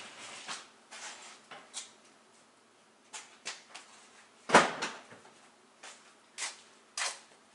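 Scattered light knocks and clicks of hard objects being handled and set down, with one louder knock about four and a half seconds in.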